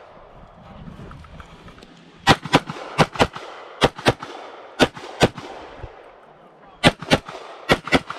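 Canik TTI Combat 9mm pistol fired in quick pairs: about a dozen sharp shots beginning about two seconds in, mostly double taps a fraction of a second apart, with short pauses between pairs.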